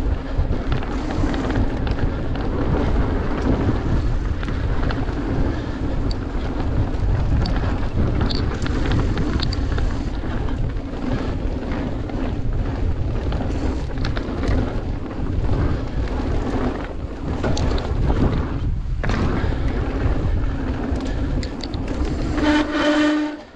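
Mountain bike riding down a dirt trail: a continuous rumble of tyres on dirt and the bike rattling and knocking over bumps, with wind rushing on the camera microphone. Near the end there is a brief, steady brake squeal before the noise drops away.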